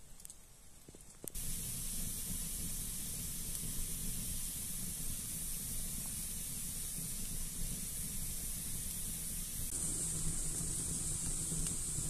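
Wood fire of sticks burning in a stone hearth with a steady hiss and a low rumble under it, starting abruptly about a second in; the hiss gets brighter near the end.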